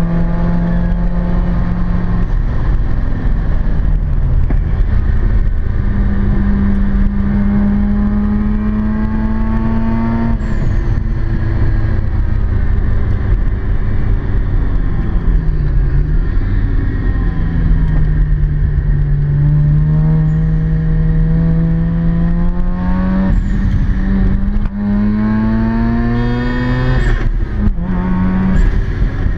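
Mazda RX-7 FC's 13B two-rotor rotary engine heard from inside the cabin, pulling hard through the gears on track: the pitch climbs steadily under acceleration and drops abruptly at each gear change or lift, several times, over steady road and tyre rumble.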